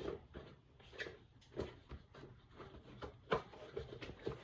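Irregular soft knocks and rubbing handling noises as a fat bike tire and its inner tube are worked back onto the rim by hand. The sharpest knock comes a little over three seconds in.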